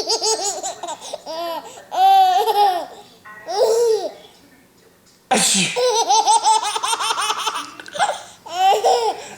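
A baby laughing in repeated bursts of giggles. About five seconds in, a man sneezes loudly ("hachoo") and the baby breaks into laughter again.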